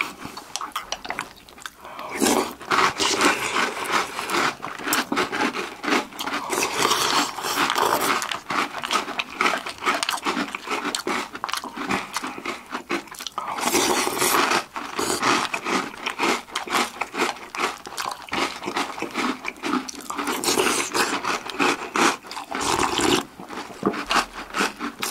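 Close-miked chewing of Oreo O's cereal in milk: loud, dense crunching, the cereal still crisp.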